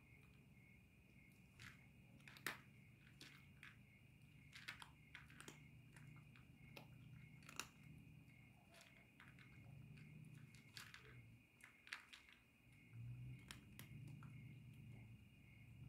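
A calico cat chewing dry kibble: faint, irregular crunches as the pellets break between her teeth, under a faint steady high-pitched tone.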